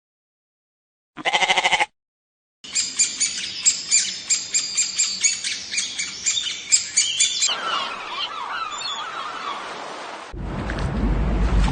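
A short pulsing, bleat-like animal call, then after a pause a dense chorus of birds chirping and squawking. A steady low buzz cuts in near the end.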